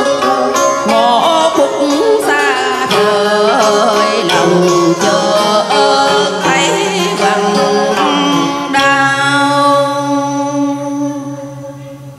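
Vietnamese cải lương music with wavering, bending melodic lines. About nine seconds in it settles on one long held note that fades out near the end.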